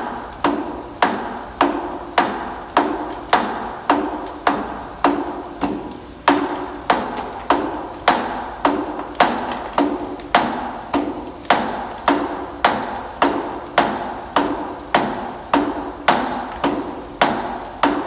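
Steady light hammer taps, about two a second, each with a short ring, tapping a cylinder on a T4S track unit to compress it in.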